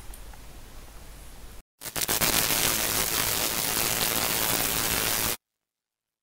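Low room hum for about a second and a half. Then, after a brief gap, a loud steady hiss of static-like noise sounds for about three and a half seconds and cuts off suddenly into silence. The hiss is a sound effect for an animated logo.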